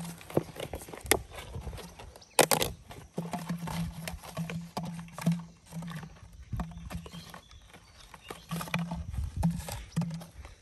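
Plastic bottles and string being handled: many short clicks and crinkles, one louder crackle about two seconds in. A low hum comes and goes underneath.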